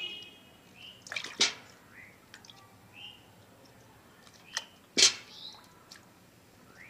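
Water in a steel pot splashing and dripping as a hand stirs it, with a few sharp splashes, the loudest about five seconds in.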